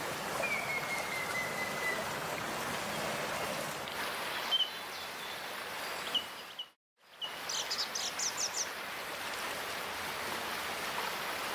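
Water running over a beaver dam, a steady rushing, with wild birds calling: a long falling whistle near the start, a few short chirps, then a quick run of high chirps about eight seconds in. The sound drops out briefly just before seven seconds.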